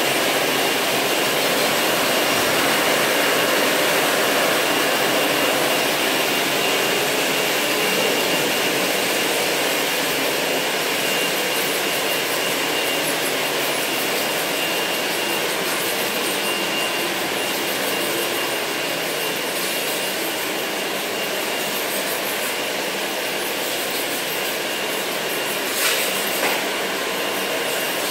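Bottle washing and filling line machinery running: a steady mechanical din with a thin, steady high whine over it. Two brief knocks come near the end.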